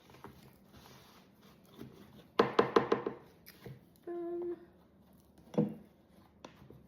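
A utensil knocking against the side of a container as flour and water are stirred into a sourdough starter. A quick run of about seven clacks comes about two and a half seconds in, and a single knock follows near the end.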